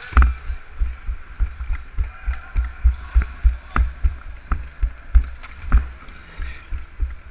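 Running footsteps of the camera wearer, heard as dull thuds about three a second as the camera jolts with each stride, with a few sharp clicks among them.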